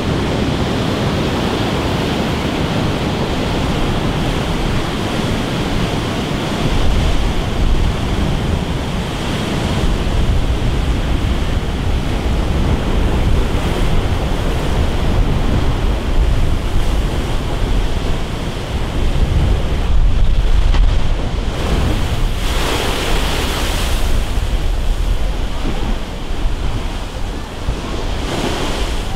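Heavy storm surf breaking against a concrete sea wall, a continuous rushing wash of churning water, with strong wind buffeting the microphone as a deep rumble. One louder burst of breaking water about three-quarters of the way through.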